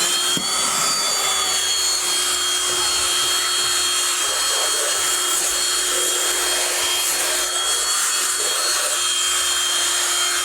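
Dirt Devil QuickFlip Pro 16V cordless handheld vacuum running with its crevice tool fitted: the motor spins up right at the start, then runs steadily with a high whine over a rush of air, sounding like it has plenty of suction power.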